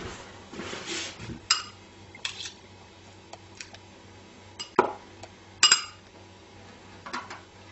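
Small metal spoons clinking and scraping against glassware as a crab-and-mayonnaise filling is scooped out of a glass bowl. There are several separate clinks, the loudest a bright ringing one a little over halfway through.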